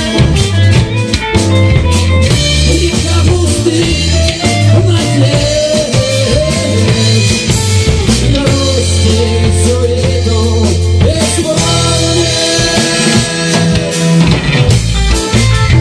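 Band music with a steady drum-kit beat, a bass line and guitar, with a wavering melody line running over it.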